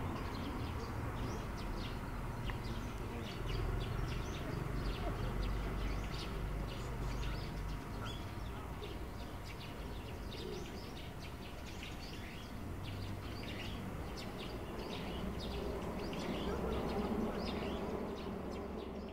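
Outdoor ambience of many small birds chirping, short calls scattered all through, over a steady low rumble.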